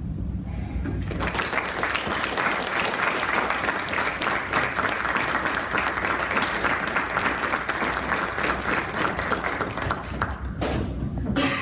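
A small audience applauding at the close of a lecture. The clapping starts about a second in and dies away near the end.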